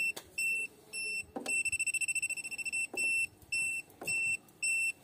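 High-pitched beeping from a VICTOR 3266 clamp multimeter's buzzer as the test probe touches the meter terminals: short beeps about twice a second, with one longer, stuttering beep about a second and a half in. Light clicks from the probe tip on the terminal screws come between the beeps.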